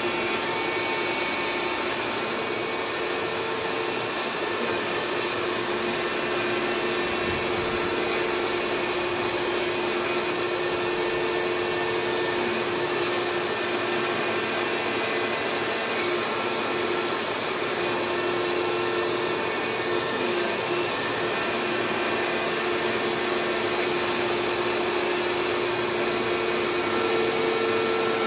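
CNC router spindle and its dust-extraction vacuum running steadily over a carbon fiber sheet: a constant whine on top of a rush of air, with no change in pitch or level.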